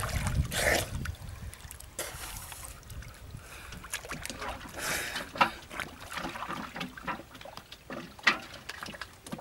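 River water splashing and sloshing around a man wading chest-deep and working his hands at the surface. A burst of splashing in the first second, then scattered small splashes and drips, with a couple of sharper splashes about the middle and near the end.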